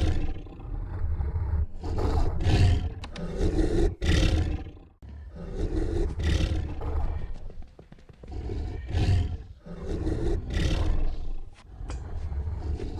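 Animal roar sound effects repeating, one deep, rasping roar about every two seconds, standing in for a sleeping dog's snores.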